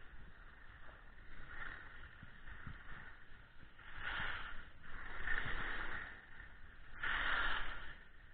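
Skis scraping and hissing over packed snow through a series of turns, the hiss swelling and fading about four times over a steady low rumble.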